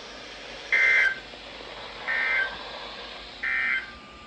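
NOAA Weather Radio SAME digital data bursts: three short two-tone bursts about 1.3 seconds apart over radio hiss. These are the end-of-message code that closes the broadcast alert test.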